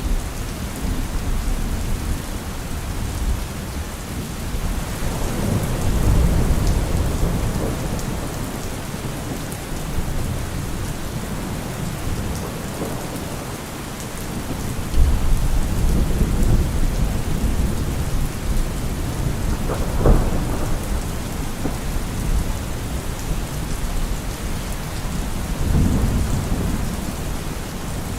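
Steady heavy rain with low rolls of thunder swelling up three times, and a sharper thunder crack about two-thirds of the way through.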